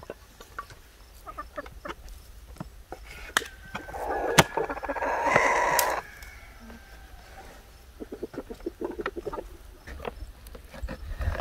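A rooster crows once midway, a loud call of about two seconds, the loudest sound here. Around it, short knocks and scrapes of a knife cutting raw beef on a wooden board.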